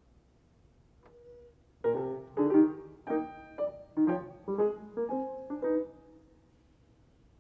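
Grand piano: after a brief pause and one soft note, a short phrase of about ten detached chords and notes, the last one held and dying away.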